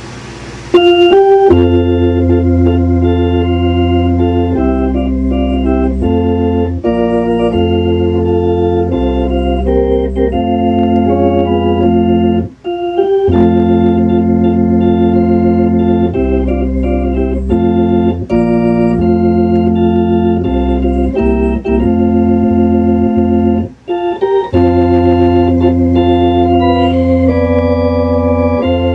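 Hammond RT-3 tonewheel organ playing a tune: sustained chords on the manuals over bass pedal notes that change every second or two. It starts about a second in and breaks off briefly twice.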